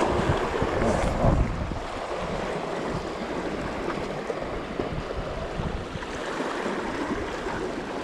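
Gale-force wind buffeting the microphone over sea washing against shore rocks, with heavier gusts in the first second or so, then a steadier rush.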